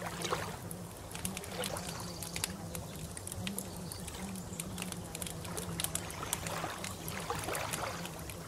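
Trickling, burbling water with many small sharp splashes and clicks, over a low steady hum.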